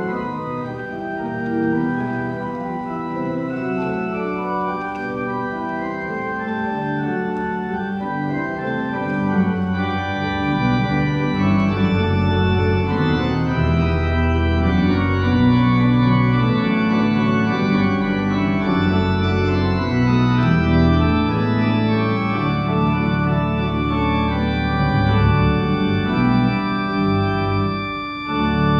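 Church organ played from a three-manual console: sustained chords, softer at first, with deep pedal bass notes coming in about a third of the way through and the sound growing fuller.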